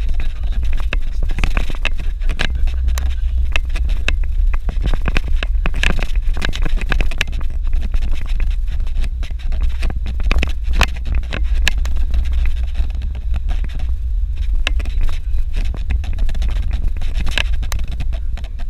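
Suzuki Jimny driving on a bumpy dirt road: a steady low rumble of engine and road, with frequent knocks and rattles as it goes over the rough ground.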